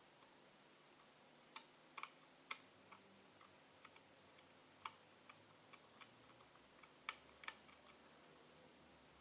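Faint, irregular sharp ticks of a fine, sharp tool scraping and picking plastic off a chip package on a laptop motherboard, a few ticks louder than the rest.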